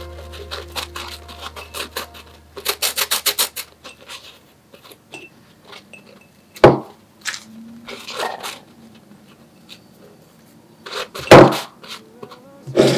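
A flat wooden stick scraping dry tea leaves out of a tea bag into a glass jar: a quick run of about eight scratches a few seconds in, then a few sharp taps against the jar, the loudest about halfway and near the end.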